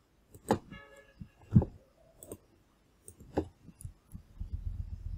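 Computer mouse clicking: a few sharp clicks spread over the seconds, the loudest about a second and a half in, with a low rumbling near the end.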